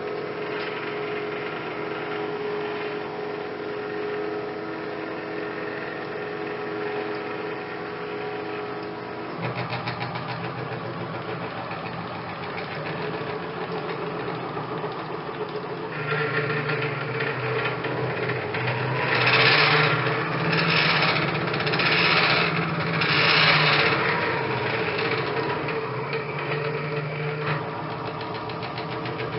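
Stepper motors and axis drives of a homemade five-axis CNC machine running a test program with no spindle fitted. The motors whine steadily, change pitch as the moves change, and surge louder about five times past the halfway mark.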